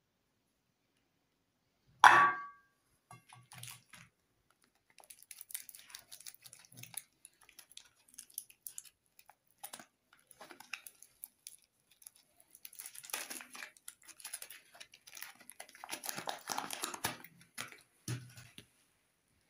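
A soap bar knocks down onto a glass plate with one sharp clack and a brief ring about two seconds in. Then comes a long stretch of crinkling and rustling as a Lux soap bar's paper wrapper is handled and opened.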